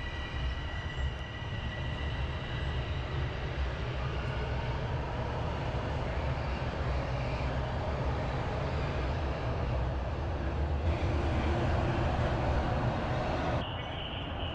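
TTC Line 1 subway train rumbling in an underground station, a steady low rumble that swells a little and then drops off sharply near the end.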